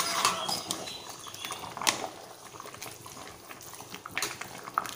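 Metal ladle stirring a thick jackfruit stew in an aluminium cooking pot, scraping through the stew and knocking against the pot several times.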